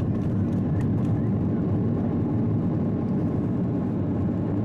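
Steady rumble inside the economy cabin of an Airbus A330-200 rolling on the ground just after landing, its engines running.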